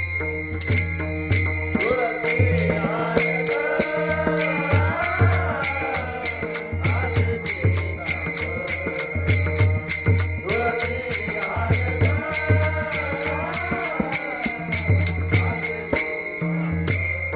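Varkari bhajan music: small hand cymbals keep a fast, even beat over low drum strokes and steady held tones, with a singing voice carrying the abhang's melody in two phrases, one about two seconds in and one near ten seconds.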